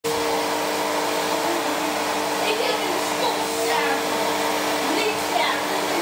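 Canister vacuum cleaner running: a steady motor whine over an even rush of air.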